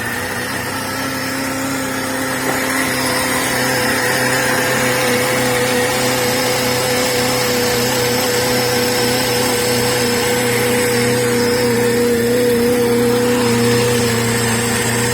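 Mercedes car engine running steadily with a constant whine, being tested after a new radiator was fitted; it grows slightly louder over the first few seconds, then holds.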